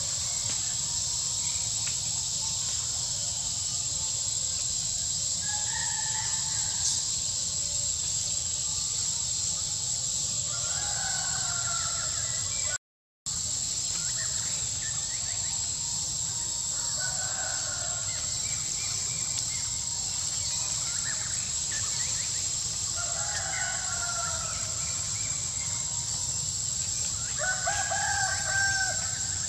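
Roosters crowing, about six drawn-out calls spread through, the loudest near the end, over a steady high-pitched hiss.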